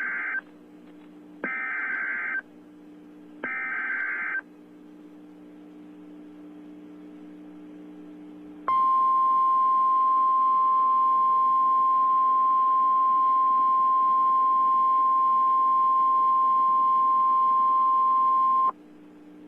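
Emergency Alert System fire warning: three short bursts of SAME header data tones about two seconds apart. After a few seconds of low hum, a single steady attention tone is held for about ten seconds and then cuts off, marking the start of the alert.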